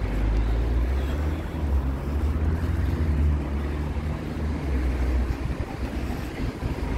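Wind buffeting the microphone on an open seafront, a strong low rumble that eases off near the end, over a steady wash of surf.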